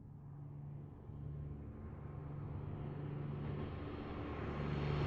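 Lockheed P-38 Lightning's twin Allison V-12 engines droning steadily in flight, growing gradually louder.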